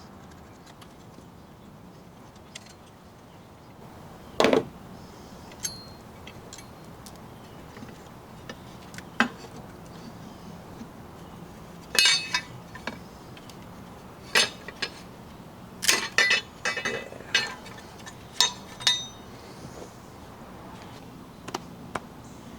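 Hand tools clinking and knocking on metal engine parts while the alternator bracket's 10 mm bolts are removed. The sharp clinks come singly at first and then in a quick cluster past the middle.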